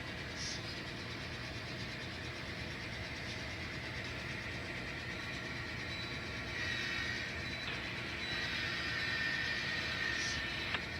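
N scale model locomotive running on the layout: a steady low running noise with a higher whine that comes in about two-thirds of the way through, and a single sharp click near the end.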